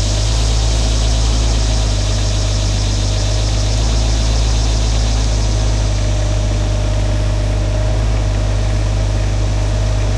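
Shantui mini excavator's diesel engine running steadily, a constant low drone with a faint steady whine above it.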